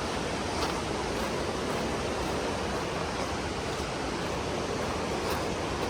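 Steady rush of fast-flowing mountain river water, an even, unbroken noise.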